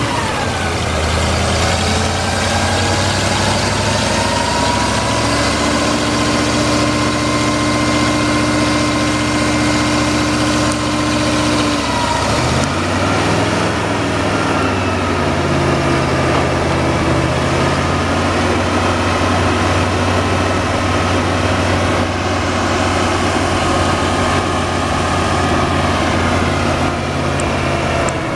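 Engine of a 1973 International Paystar 5000 pressure digger truck running steadily. The engine speed drops just after the start and changes again about twelve seconds in.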